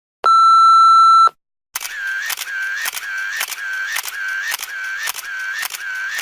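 Two digital sound effects played back to back. First a single steady censor-style beep held for about a second. Then, after a short gap, a fast repeating electronic effect: a short wavering tone with a click, about three times a second.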